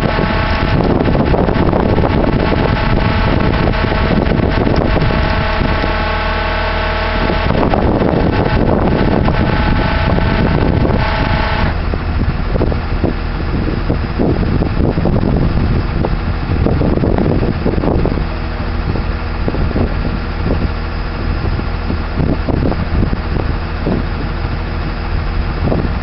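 Tow truck's engine running steadily, heard from the wrecker's bed; its tone changes about halfway through, when the higher part of the sound drops away.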